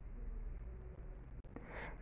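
Quiet room tone with a faint low hum, a single small click about one and a half seconds in, then a soft intake of breath just before speaking.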